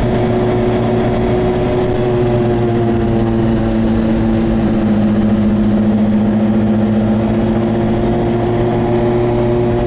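Cabin sound of a 1967 Volvo Amazon 122S wagon driving at steady speed: its four-cylinder engine and road noise under a loud, steady hum coming from one of the front wheels, which swells a little about halfway through. The hum is an unexplained fault the owner has yet to diagnose.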